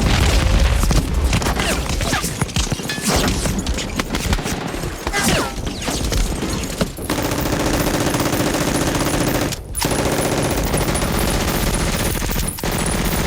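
Film battle sound effects: dense rifle and machine-gun fire with many sharp shots and impacts. About seven seconds in it turns into a steadier, unbroken stretch of fire, with a brief dip near ten seconds.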